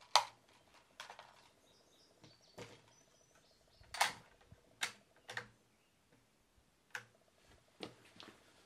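Scattered sharp clicks and knocks from a scoped .300 Win Mag rifle being handled on a wooden shooting bench. The loudest clicks come just after the start and about four seconds in, with lighter ones later.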